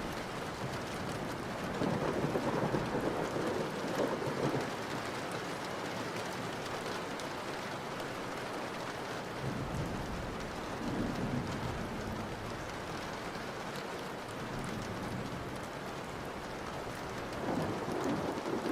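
Steady rain falling, with a few low swells rising and fading about every few seconds.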